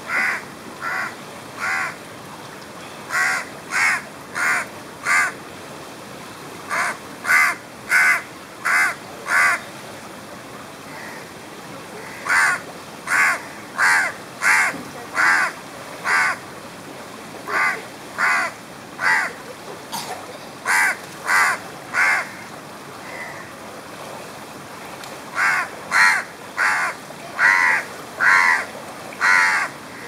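House crow cawing: short repeated caws in bouts of three to seven, about two a second, with pauses of a second or more between bouts.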